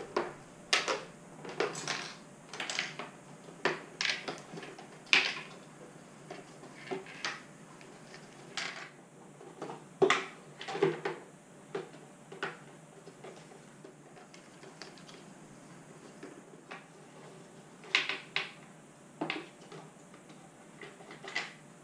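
Irregular sharp clicks and knocks from handling a headlight housing, with hard parts tapping and clattering as it is turned over and worked on. They come thickest in the first half, with a few more near the end.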